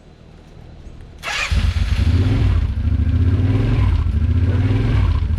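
2008 Kawasaki Brute Force 750 ATV's V-twin engine, freshly rebuilt, firing up about a second in and then running with a slightly wavering pitch.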